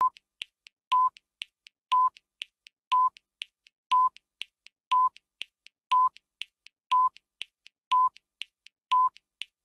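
Electronic countdown timer beeping once a second, ten short beeps in all, with quicker, fainter ticks between the beeps.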